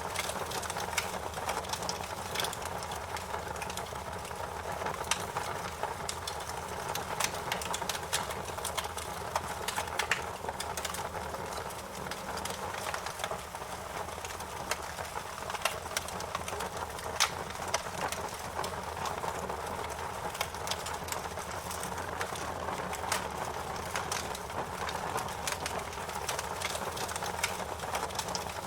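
Wood fire burning: a steady rush of flames with frequent sharp crackles and pops scattered irregularly throughout.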